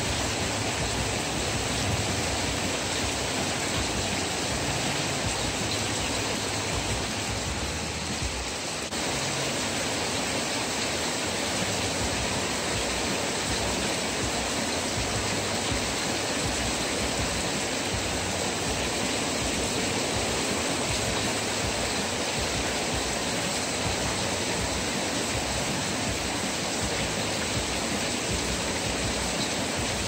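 Heavy rain pouring steadily, a dense even hiss of rainfall and runoff, heard from under a metal porch awning.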